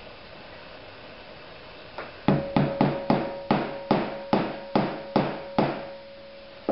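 Steel center punch struck about ten times with a rubber mallet, roughly three blows a second, starting about two seconds in, each blow with a short metallic ring. The punch is marking a pilot dimple in a snapped-off bolt stub in an exhaust manifold so the drill bit won't walk.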